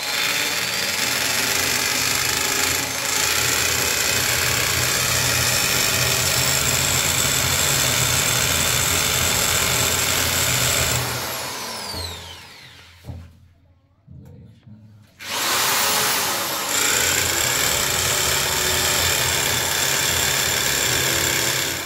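Electric drill boring into ceramic wall tile. It runs steadily for about eleven seconds, spins down with a falling whine, and after a short pause starts again with a rising whine and runs until it cuts off at the very end.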